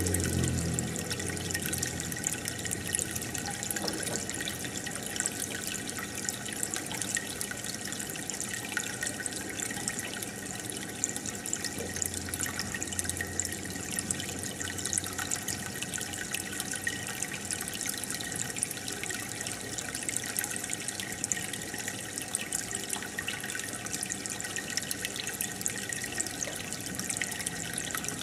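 Aquarium air outlet bubbling steadily: a continuous stream of air bubbles trickling up through the water, with many small pops and splashes at the surface.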